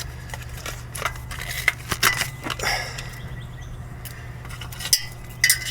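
Cheap metal hand tools being picked through and handled, giving scattered light clinks and scrapes, over a steady low hum.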